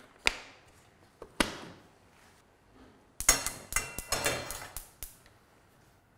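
Metal kitchenware being handled: two sharp knocks, then a quick run of clinks and clatters with a metallic ring.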